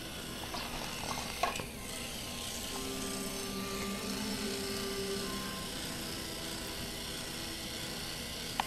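Small electric motor of a battery-powered Thomas toy engine whirring steadily while it is held in the hand, with a short click about a second and a half in.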